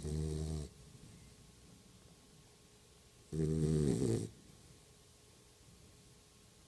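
Snoring in slow, regular breaths: the end of one snore right at the start, then a full snore of about a second around three and a half seconds in, each a low, pitched drone.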